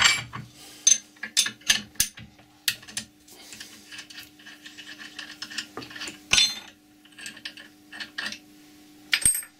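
Irregular metal clicks, clinks and short scrapes of a steel spanner and nut as the nut holding a copper disc on a steel mandrel is worked loose by hand, with a faint steady hum underneath.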